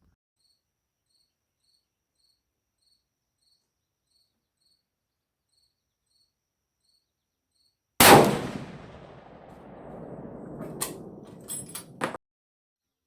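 Faint cricket chirps, then about eight seconds in a single very loud shot from a .416 Ruger bolt-action rifle, its report dying away over a second or two. A few sharp clicks follow before the sound cuts off suddenly.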